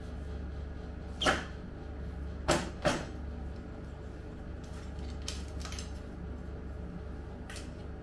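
Handling noise of a bicycle crank arm and pedal being cleaned with a bristle brush: three sharp knocks, one about a second in and two close together a little later, then a few fainter brushing scrapes, over a steady low hum.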